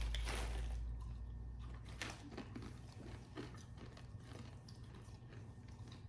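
A person chewing and biting into a snack, with a few small crunches and clicks.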